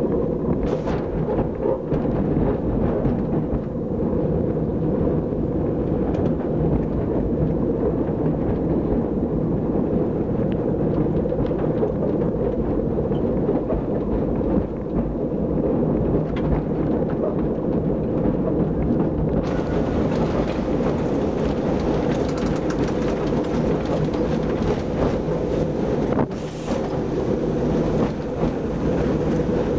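Vintage wooden electric tram of Sóller running along its track: a steady loud rumble of wheels on rails and the rattling car body, with a steady hum under it. About two-thirds of the way through, a brighter hiss joins in.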